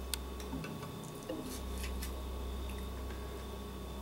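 Faint, scattered clicks of a kitchen knife touching a porcelain plate while raw fish fillets are cut into pieces, over a steady low hum.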